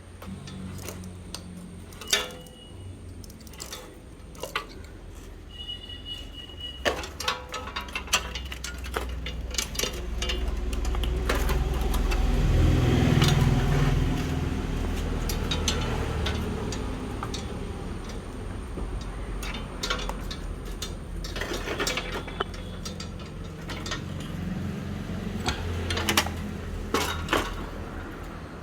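Hand tools working on the rusty axle and nuts of an old bicycle: scattered metal clinks, taps and clicks, with a brief high metallic ring twice in the first few seconds and a low rumble that swells in the middle.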